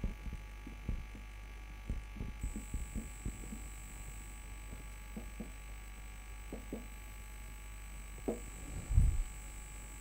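Faint scratching and short squeaks of a marker pen writing on a whiteboard, with a soft low thump near the end, over a steady low electrical hum and a thin high whine.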